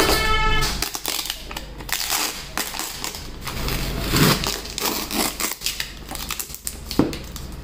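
Paper packing and cardboard on a shipping box being torn open by hand: a rapid, uneven series of rips and crinkles.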